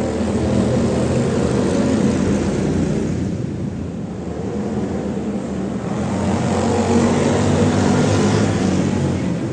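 Small engines of mini racing machines running laps on a dirt track, a steady drone that gets louder as they pass, about two seconds in and again from about six to eight seconds.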